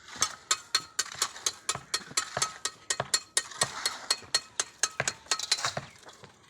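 Rapid, irregular sharp taps and clinks, about four or five a second, from hand tools striking hard material on a building site; they stop shortly before the end.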